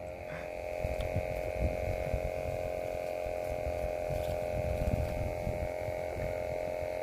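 A steady hum of two held tones, one low and one high, over an uneven low rumble.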